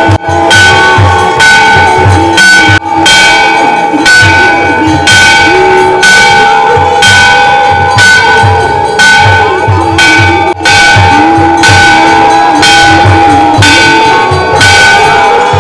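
Hindu temple bells rung for the aarti, struck over and over at a steady pace of about three strikes every two seconds, their ringing carrying on between strokes, with a low beat pulsing underneath.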